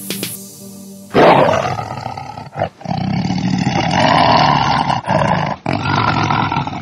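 A loud animal roar sound effect that starts suddenly about a second in and runs in several long stretches with brief breaks, cutting off the outro music.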